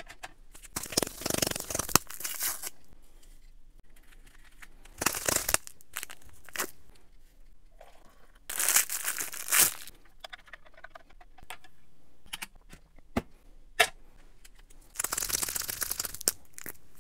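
MRE drink packets being torn open and handled: plastic packaging tearing and crinkling in four separate bursts, with small clicks and taps between them.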